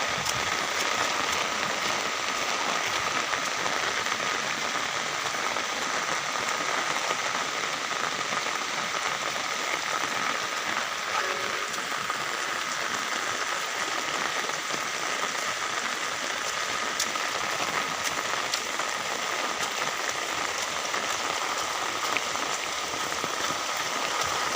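Heavy rain pouring down, a steady hiss with scattered drop ticks.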